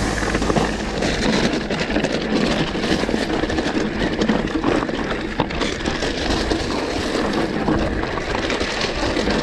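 Lapierre GLP2 electric mountain bike riding up a rocky trail: a dense, steady crunch of tyres over stones, with scattered knocks and rattles from the bike.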